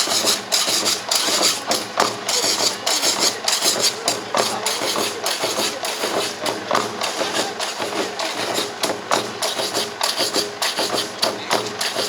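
Shishi odori deer-dance music: drums struck in a steady fast rhythm, with a bright jingling over the beat.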